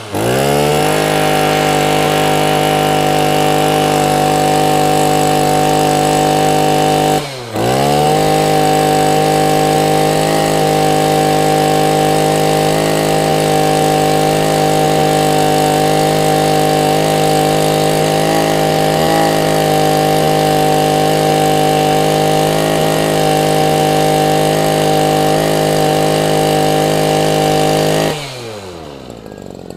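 Small two-stroke brush cutter (string trimmer) engine running at high speed with a steady buzz after revving up. About seven seconds in the revs drop sharply and the engine almost stops, then it climbs straight back to speed. Near the end the revs wind down.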